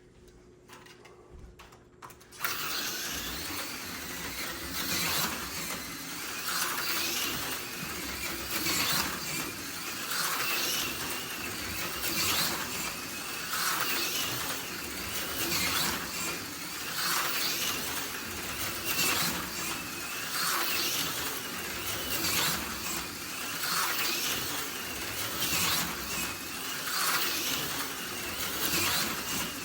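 AFX Super G-Plus HO-scale slot car running laps on its track: the small motor whines and the car hisses along the rails, starting suddenly about two seconds in. The sound swells and fades in a regular cycle every second and a half or so as the car goes round the loop.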